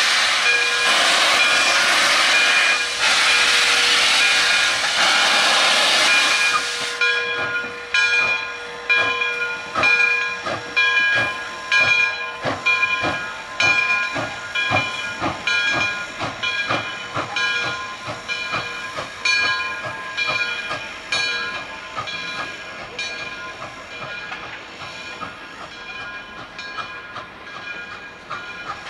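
Frisco 1630 steam locomotive letting off a loud hiss of steam that cuts off sharply about seven seconds in. Its exhaust chuffs then begin, about one a second and quickening, and grow fainter as the locomotive moves off.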